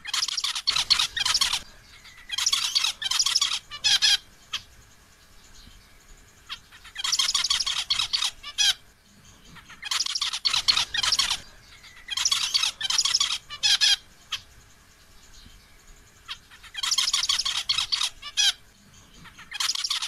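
Male zebra finch calling to a female: about seven bouts of rapid, high notes, each lasting about a second and a half to two seconds, with short pauses between them.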